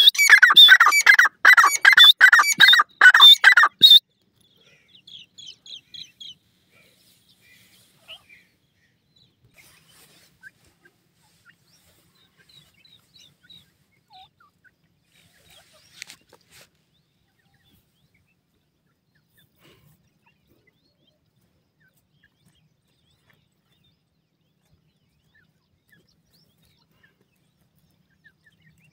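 Grey francolin giving its loud, rapidly repeated call, about two calls a second, which stops suddenly about four seconds in. Afterwards only faint high peeps and a few soft ticks.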